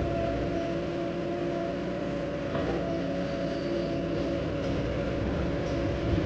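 Heavy diesel engine running steadily under load, a constant drone with a low rumble and a few faint clicks.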